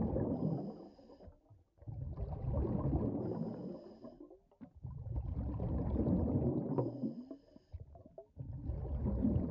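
Underwater-style ambient sound bed: low rumbling, gurgling swells that rise and fade about every two to three seconds, some carrying faint high shimmering tones.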